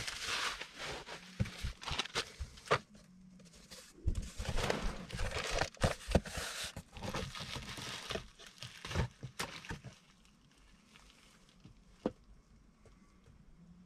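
Bubble wrap crinkling and cardboard packaging rustling as hands move about in a shipping box, with many small clicks and knocks. The handling noise dies down about ten seconds in, and one sharp click comes near the end.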